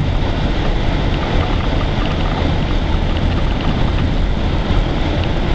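SUV driving on a snow-covered road: a steady low engine rumble under a constant hiss of tyres and snow.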